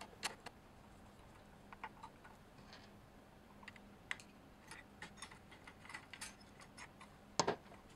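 Scattered light clicks and taps of a screwdriver and small metal and plastic parts being handled inside an opened stand mixer while the RF filter is screwed to the gearbox, with a louder double knock near the end.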